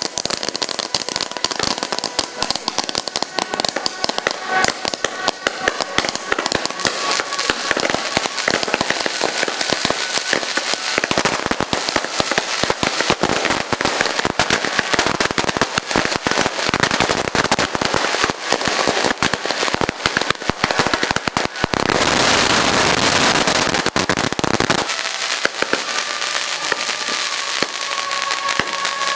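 A string of firecrackers going off in a rapid, continuous crackle, with a few seconds of denser, louder firing late on.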